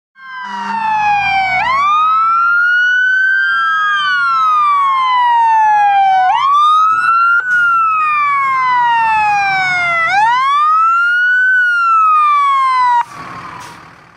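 Emergency-vehicle siren wailing loudly, its pitch sweeping up quickly and then falling slowly, about once every four seconds. It cuts off suddenly near the end, leaving a brief hiss.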